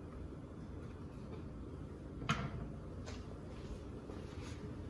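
A wooden cutting board and knife being handled at a kitchen counter: a single light knock a little over two seconds in and a fainter one about a second later, over quiet room tone.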